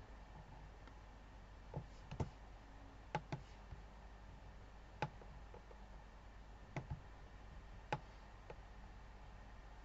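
Computer mouse clicking now and then: several short sharp clicks, some in quick pairs, over a faint steady hum.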